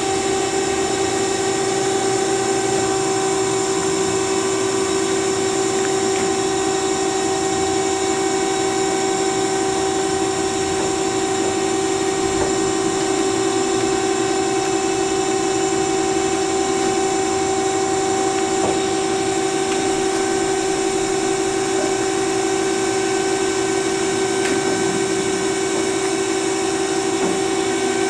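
HEM WF160LM-DC horizontal band saw running with a steady, even whine.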